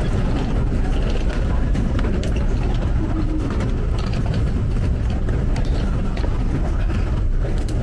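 Train running, a steady low rumble with a few light clicks.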